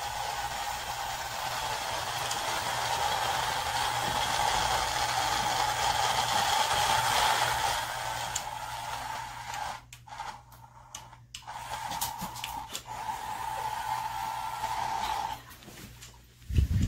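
Small electric motor of a battery-powered remote-control toy bunny whirring with a steady whine. It cuts out briefly about ten seconds in, runs again, then stops near the end, just before a single low thump.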